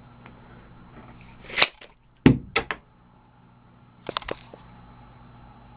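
Tape measure played with like a yo-yo: a swish of the blade about a second and a half in, then a sharp clack as the blade snaps back into the case, with a couple of smaller rattling clicks, and a short quick run of clicks near the end.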